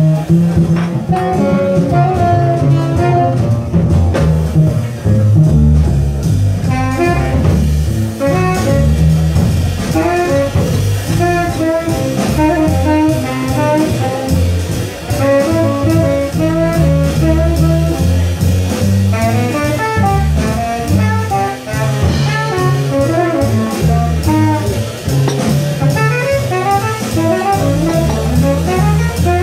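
Live jazz combo playing: a saxophone carries a running melodic solo over a walking double bass and drum kit.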